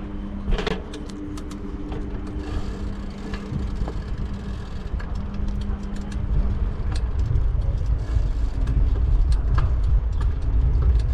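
Wind and road rumble on a bicycle-mounted GoPro riding through city traffic, with a steady low hum in the first half. The rumble grows louder after about six seconds, and short clicks and rattles are scattered throughout.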